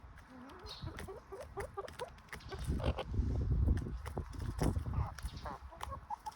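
Chickens clucking: a quick run of short notes in the first couple of seconds, then a loud low rumble through the middle, with a few short higher calls near the end.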